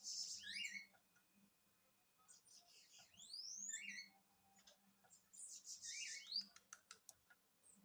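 Bananaquit (sibite) singing: three short, high, buzzy phrases with quick rising and falling sweeps, a second or two apart, followed by a run of sharp ticks near the end.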